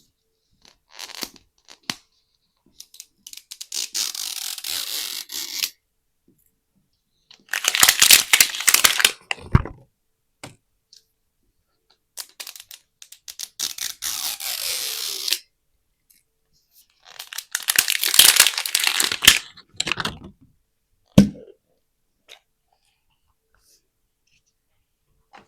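Plastic wrapping on Mini Brands capsule toys being torn and crinkled in several bursts of a few seconds each, then a single sharp click near the end.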